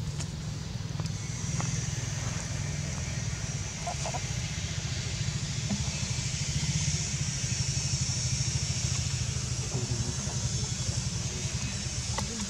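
Outdoor ambience: a steady low rumble under a high, even buzz that swells in the middle, with a few faint clicks.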